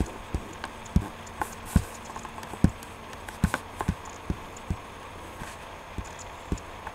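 A series of soft, irregular knocks or taps on a hard surface, about two a second.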